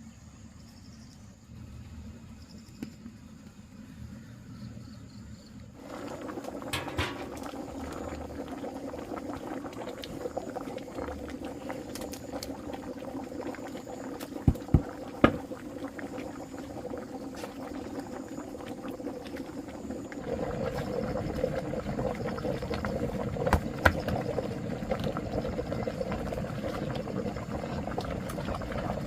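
Food cooking in a pot: a steady noise that starts about six seconds in and grows louder about twenty seconds in, with a few sharp knocks.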